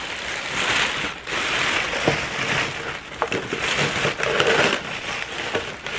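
Clear plastic liner bag crinkling and rustling as it is pulled open and folded back over the edges of a cardboard box, in several stretches with short pauses.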